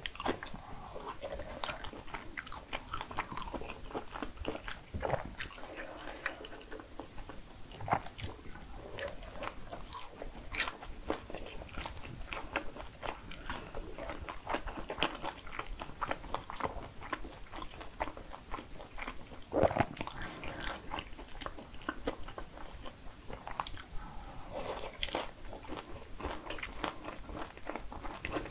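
Close-miked eating sounds: a person chewing jajangmyeon noodles and biting and crunching crispy fried kkanpunggi chicken. There are many small wet clicks and crunches throughout, and a louder crunch about twenty seconds in.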